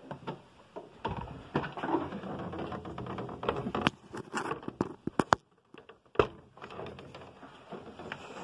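Hands working the plastic windshield cowl and washer fluid hose: scattered plastic clicks, taps and rustling, with a quick run of sharp clicks about four to five seconds in and a single loud knock about six seconds in.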